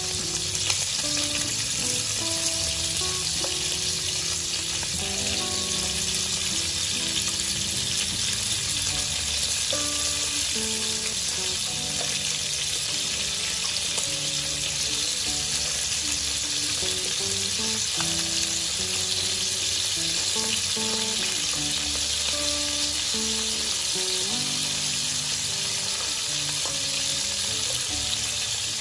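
Pork rib pieces frying in hot oil in a wok, a steady, even sizzle.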